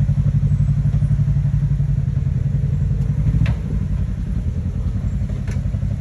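Polaris RZR side-by-side engine running steadily at low speed, its note dropping slightly about three and a half seconds in. Two short sharp knocks come through, one just before the drop and one near the end.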